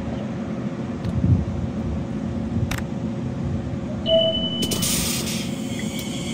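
Elizabeth Line Class 345 electric train standing at the platform with a steady low rumble and hum. About four seconds in, a short high beep sounds. A hiss and a steady high whine then rise as the train starts to move off.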